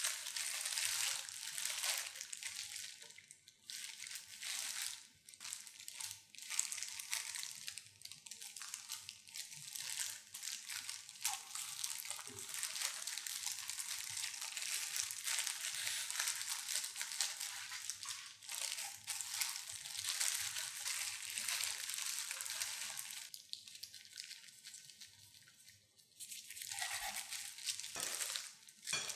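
Disposable plastic gloves crinkling and rustling as hands squeeze and roll small pieces of seaweed-wrapped rice kimbap. The sound comes in stretches with short pauses, dipping briefly near the end.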